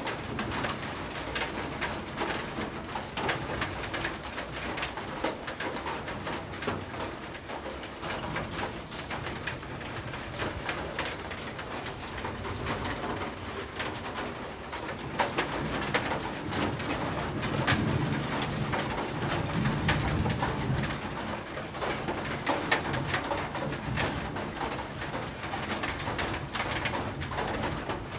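Rain falling and dripping onto leaves and pots as a dense patter, with a low rumble of thunder swelling about two-thirds of the way through. A bird coos over the rain.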